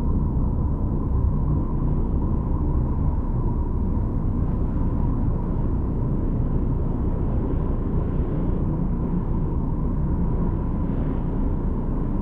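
A homemade imitation of a space 'planet sound', built by layering several sounds: a steady, deep noisy drone with a thin high tone held above it.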